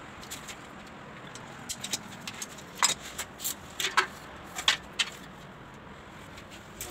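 A run of sharp, irregular clicks and light taps, about ten over three seconds, the loudest from about three seconds in, over a steady background hum.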